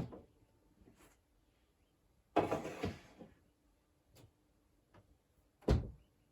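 Household handling noises while cleaning a room: a short scraping noise about two and a half seconds in, a few light clicks, and a sharp knock near the end.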